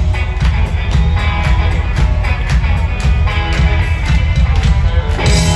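Live rock band with electric guitars, bass and drums playing loudly, heard from the arena crowd. About five seconds in the drumming stops and a final chord rings on.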